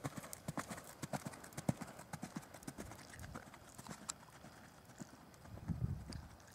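Horse cantering on a sand arena, its hooves beating in a quick rhythm of dull thuds and clicks, with a low rumble near the end.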